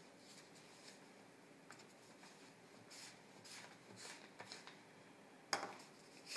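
Quiet rustling and rubbing of construction paper as it is folded and pressed flat by hand, with one sharp tap near the end.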